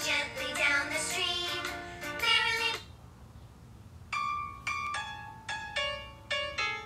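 Background children's music: a melody that stops about three seconds in, then after a short pause a run of plucked notes, each starting sharply and fading.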